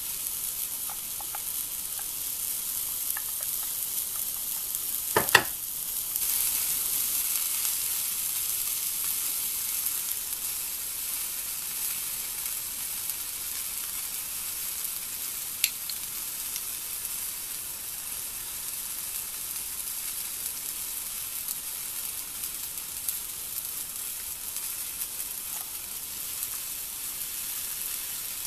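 Steady high hiss like fizzing, with one sharp clink about five seconds in and a faint tick near the middle.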